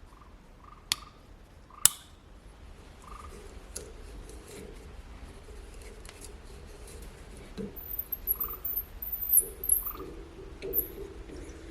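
Hand work with small tools: two sharp clicks, then faint scraping and light ticking that grows into a busier run of knocks and scrapes near the end, with a few high squeaks.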